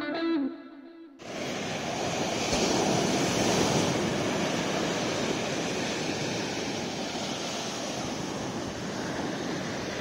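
Ocean surf breaking and washing up a sandy beach: a steady rush of waves that swells slightly a few seconds in.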